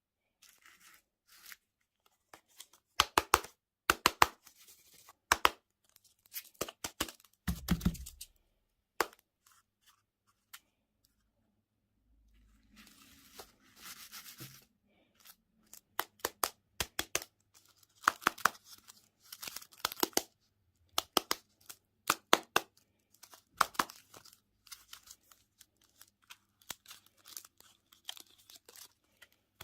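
Candy packaging being torn open and handled: many sharp crackles and ripping sounds, with a duller thump about eight seconds in.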